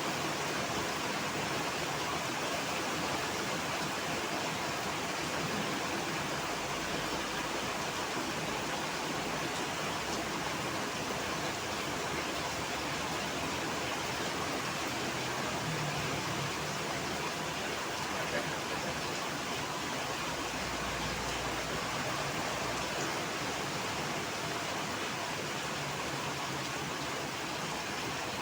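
Heavy rain falling steadily, an even hiss, with a brief low rumble about twenty seconds in.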